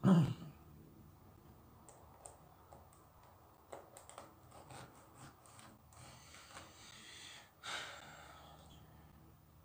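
Small plastic Lego tiles clicking and rattling as they are picked from a loose pile and pressed onto a Lego baseplate, with scattered light clicks and a stretch of rustling near the end. A short, loud, breath-like huff right at the start.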